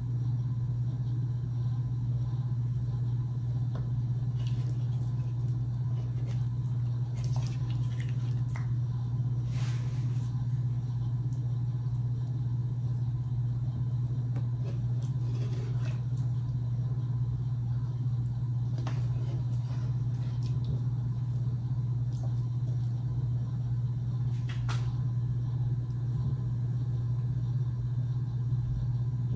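A steady low hum throughout, with a few faint clinks of a serving spoon against a pot as steak and gravy are spooned out.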